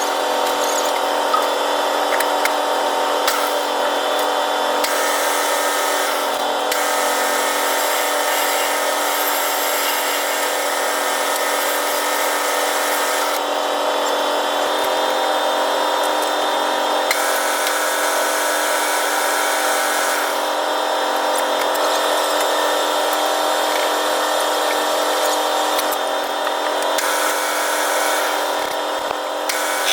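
Manual metal lathe running, a steady mechanical hum of several constant tones, with a high hiss that comes and goes every few seconds.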